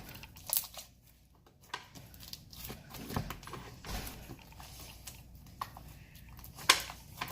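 Slime with foam beads in it being squeezed and stretched by hand, giving irregular crackling, popping and sticky tearing sounds, with one sharper pop near the end.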